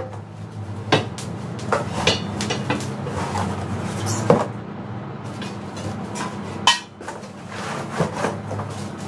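Hard objects being handled and set down: about six sharp, irregular clacks and knocks, two louder ones past the middle, over a low steady hum.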